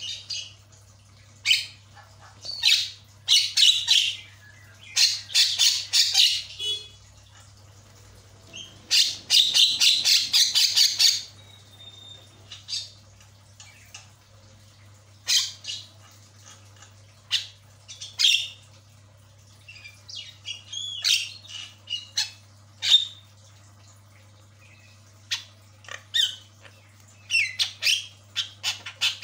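Javan myna calling in a chattering string of harsh squawks and short whistled notes, with a long, rapid rattling burst about nine seconds in. A steady low hum runs underneath.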